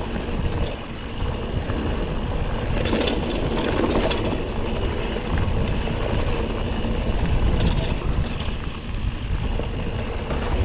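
Mountain bike rolling down a dirt singletrack: steady wind rumble on the microphone over the hiss of the tyres, with a few brief rattles from the bike over rough spots.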